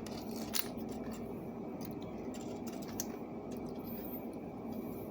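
Pliers and wire being handled: a few light clicks and taps, the clearest about half a second in and about three seconds in, over a steady low room hum.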